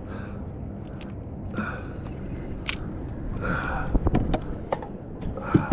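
Handling noise aboard a plastic fishing kayak: scattered sharp knocks and clicks as a fishing rod and gear are moved about, with a few short breaths in between, over a steady low background hiss.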